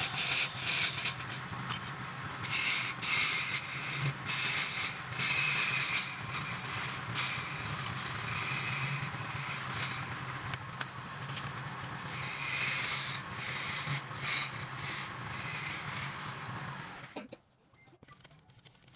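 Wood lathe running with a turning tool cutting and scraping the spinning wood: a steady motor hum under a rasping noise that swells and eases as the tool bites, stopping suddenly near the end.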